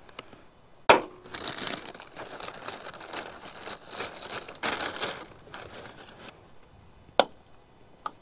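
Paper crinkling and rustling as it is handled and crumpled by hand, with a sharp click about a second in, the loudest sound, and another sharp click near the end.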